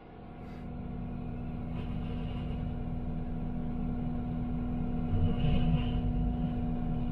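Heavy diesel machinery running steadily, heard from inside a machine's cab, with a constant low drone and rumble. The sound fades in over the first second.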